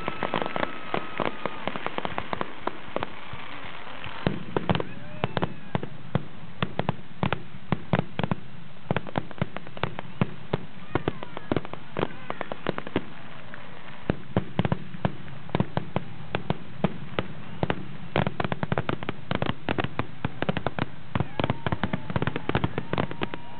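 Fireworks display: a rapid series of sharp bangs and crackles from bursting aerial shells. The reports come thick and fast, ease off briefly in the middle, then quicken into a dense barrage.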